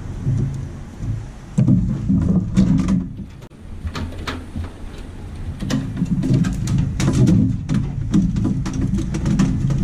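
Clicks and rattles of cables and parts being handled inside an open desktop PC case during repeated boot attempts on a machine that will not power on. Under them runs a low pitched drone that comes and goes.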